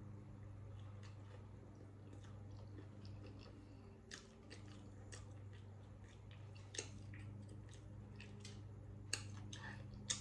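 Someone chewing a mouthful of nachos, with scattered short crunches of tortilla chips.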